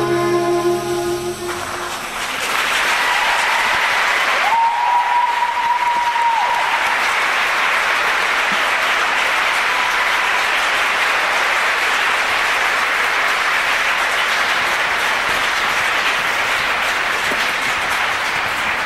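Dance music ends about a second and a half in, and an audience then applauds steadily. Near the five-second mark a single held whistle-like tone sounds for about two seconds over the clapping.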